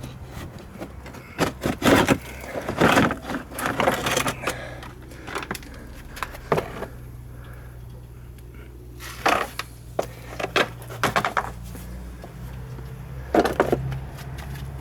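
Hand tools and car trim parts being handled: irregular clicks, knocks and scrapes in several clusters, over a steady low hum.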